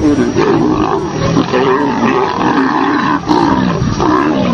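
Several big cats growling and roaring together in continuous, wavering, overlapping calls.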